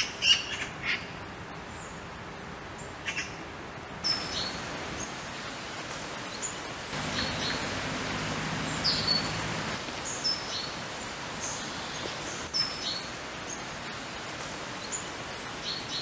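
Small songbirds calling: scattered short, high chirps, many sliding downward in pitch, over a steady background hiss. A low hum comes in about seven seconds in and fades out a few seconds later.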